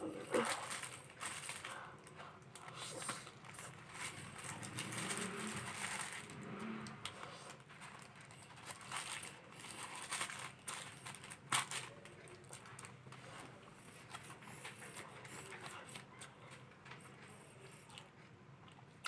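Close-up eating sounds: chewing and handling food, with many irregular short clicks and rustles.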